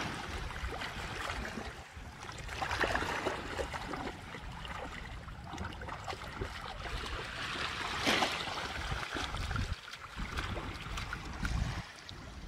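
Shallow seawater splashing and small waves washing over a rocky shore as a dog wades through it, with brighter splashes about three and eight seconds in. A low rumble of wind on the microphone runs underneath, heaviest near the end.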